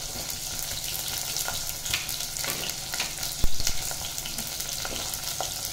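Hot oil sizzling in a pressure cooker as stuffed small brinjals and potato pieces fry in it. A few knocks come as more potato pieces are dropped in, the loudest about three and a half seconds in.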